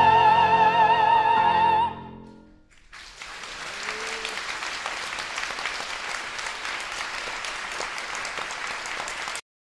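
Classical singers hold a closing sung note with strong vibrato, which ends about two seconds in. After a short pause, the audience applauds steadily until the sound cuts off abruptly near the end.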